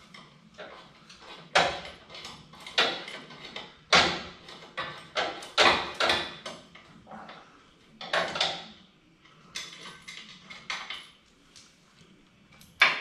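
Irregular metal clanks and knocks of hand tools and steel parts against a truck frame, about a dozen sharp strikes with short ringing, unevenly spaced.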